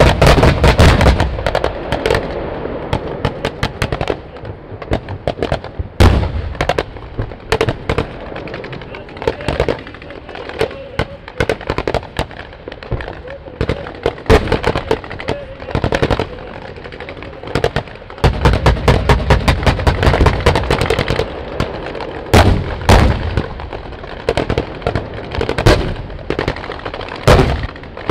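Live-fire battle with sustained volleys of small-arms and machine-gun fire, many shots overlapping, and heavier booms among them. The firing is densest at the start and again about two-thirds through.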